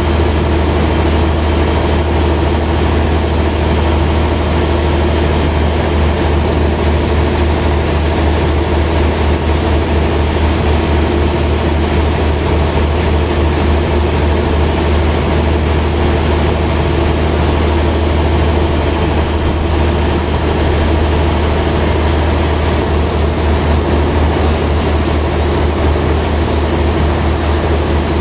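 Sawmill band-saw machinery running steadily with a loud, constant low hum, idling without cutting while the log is set on the carriage.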